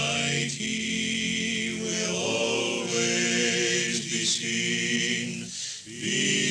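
One man's voice overdubbed into several harmony parts, singing a hymn as a small choir would, in long held chords. The chords change about two seconds in and briefly break near the end.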